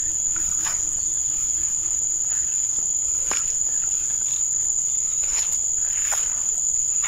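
A steady, high-pitched insect chorus: one unbroken shrill tone that does not waver, with a few faint soft rustles now and then.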